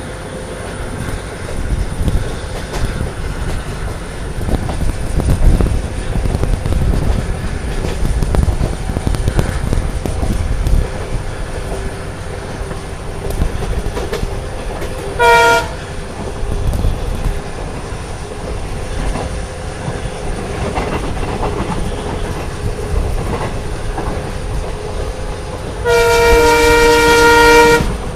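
A passenger train running, heard from on board: a steady rumble of the coaches on the rails, with the WDP4 diesel locomotive's horn giving a short blast about halfway through and a longer blast of about two seconds near the end.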